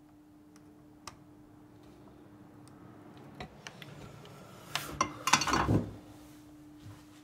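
A short clatter of metal clinks and knocks at the soldering workbench about five seconds in, as the soldering work is set down and the repairer gets up. Before it come a few faint ticks and a light click, over a steady low hum.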